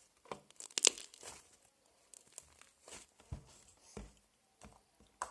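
Homemade fluffy slime made with shaving cream being stretched and squeezed by hand, giving irregular sticky crackles and pops, loudest just under a second in.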